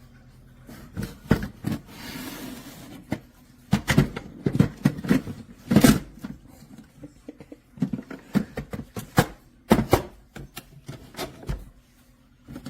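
Handling noises from a coffee maker and its parts: a string of irregular clicks and knocks, with a short hiss about two seconds in.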